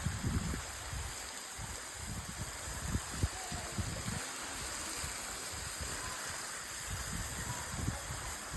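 Stream water running: a steady rushing hiss, with irregular low rumbling thumps underneath.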